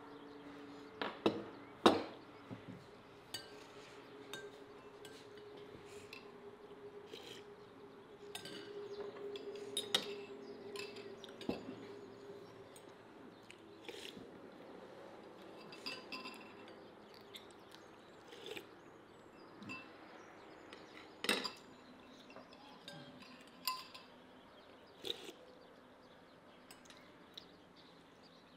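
Scattered clinks and knocks of cutlery against dishes, the sharpest a couple of seconds in and again about two-thirds of the way through.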